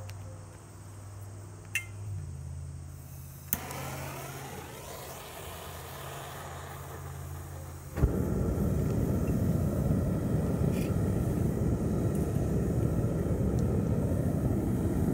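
Propane burner of a homemade foundry furnace lighting about eight seconds in with a sudden pop, then burning with a loud, steady rush of flame. A fainter hiss of gas runs before it lights.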